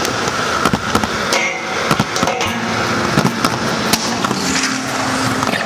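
Inline skate wheels rolling on concrete: a steady gritty hiss broken by frequent small clicks and knocks.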